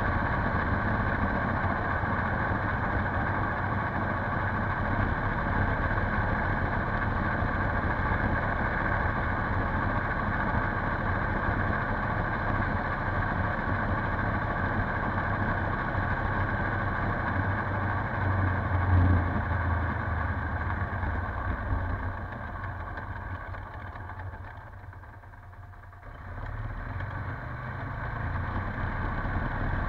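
Polaris Sportsman 570 ATV's single-cylinder engine running steadily while riding, with a brief swell about two-thirds of the way in. The engine note then falls away for a few seconds and picks up again near the end.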